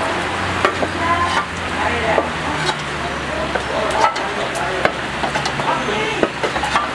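Pilaf ingredients sizzling in hot oil in a large pot while being stirred, with scattered sharp knocks of the metal utensil against the pot.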